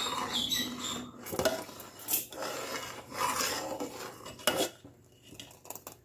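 A metal ladle scrapes and knocks against the bottom and sides of an aluminium pot in irregular strokes, stirring thick milk and rice for payesh so it does not stick or form a skin. The strokes grow sparse and quiet near the end.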